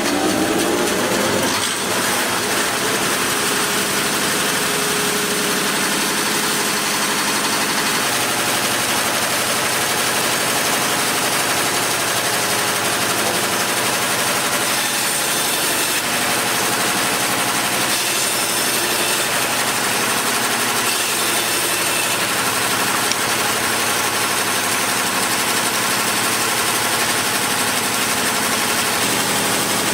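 Yates American Y-36 36-inch direct-drive band saw finishing its run-up to speed in the first second or so, then running steadily with a hum and a hissing blade noise.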